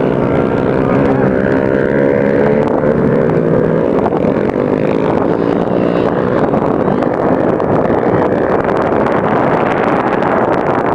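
Racing quad engine running hard at speed, its pitch rising and falling with the throttle for the first few seconds, then turning into a denser, steady rush mixed with wind noise on the microphone.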